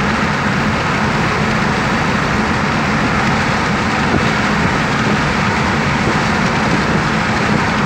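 Steady road noise inside the cabin of a car moving along a highway: even tyre and wind rush with a constant low engine drone underneath.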